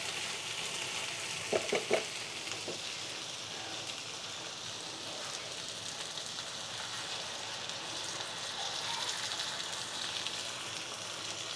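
Spiced vegetables frying in a hot nonstick kadai with a steady sizzle, as water is poured into the pan from the side and hisses against the hot oil and masala. Two brief knocks sound about a second and a half in.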